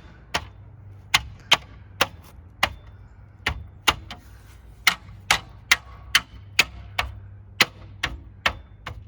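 A hubcap being knocked onto a car wheel: a string of sharp knocks, roughly two a second and unevenly spaced, as it is fitted into place.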